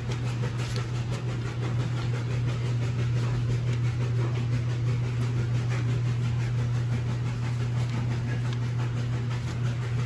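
A steady low mechanical hum, with light rustling and soft knocks as a person climbs into a bucket seat and handles harness straps.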